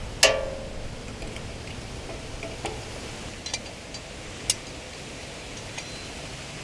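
Steel parking stand and pin of a tractor bagger frame being handled: one ringing metal clank about a quarter second in, then a few light metallic clicks and taps.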